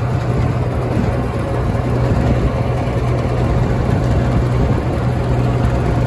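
Skid steer loader's engine running steadily at a constant speed, a loud, even low hum.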